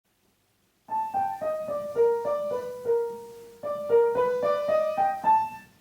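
Solo piano playing a slow melody of single notes, starting about a second in, in two phrases separated by a short pause.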